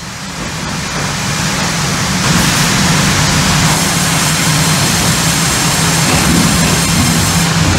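Sawmill log feeder machinery running: a loud, steady din of an electric gearmotor and crank drive turning the feeder, with a constant low hum under a broad hiss. It builds up over the first couple of seconds and then holds steady.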